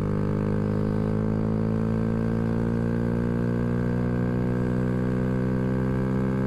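Honda Grom's 125 cc single-cylinder four-stroke engine running hard at a steady high pitch while cruising at about 60 mph, over a low wind rumble.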